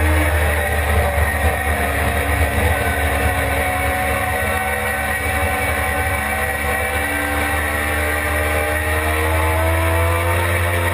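Suzuki GSX-R600's inline-four engine running hard on track, heard from the bike with heavy wind noise on the microphone. The engine pitch dips a little early on, then climbs steadily through the second half as the bike drives out of a corner.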